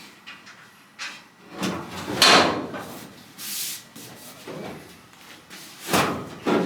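A few separate metallic clunks and knocks as a sheet-steel pickup fender is handled and test-fitted against the body. The loudest comes about two seconds in.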